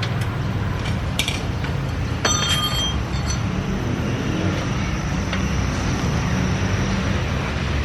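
Metal tools or parts clinking a few times, with short ringing tones, over a steady low rumble like passing traffic.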